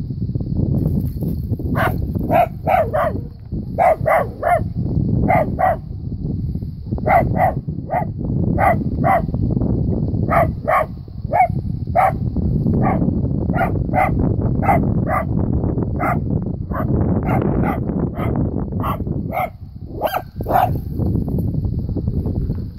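Dachshund barking repeatedly at a snake: short, sharp barks, often in quick runs of two or three, with brief pauses between runs. A steady low rumble runs underneath.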